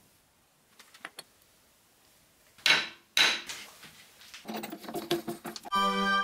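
A steel block set into a steel milling-machine vise: two sharp metal clanks about half a second apart, then rattling clicks as the vise handle is cranked to clamp the block. Near the end, music with a steady held tone comes in.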